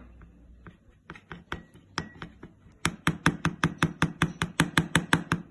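A metal spoon clinking against a container while scooping honey: a few scattered clicks, then from about halfway a fast, even run of clinks, about six a second.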